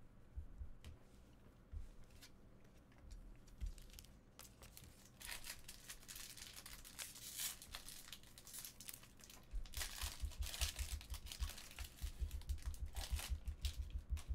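Trading-card pack wrappers being torn open and crinkled, in two noisy stretches starting about five and ten seconds in. Rapid low bumps of handling come under the second stretch.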